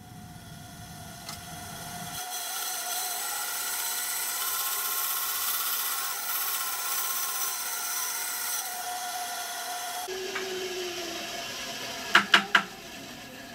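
Bandsaw running with a steady motor whine while its blade cuts a circle out of a piece of scrap wood; the cutting hiss builds after about two seconds and stops near the end. Then three sharp knocks come in quick succession.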